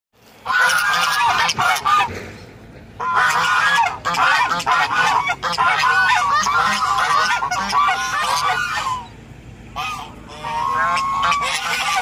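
A small flock of domestic Chinese geese honking loudly, many calls overlapping at once, with short breaks about two seconds in and again near nine seconds.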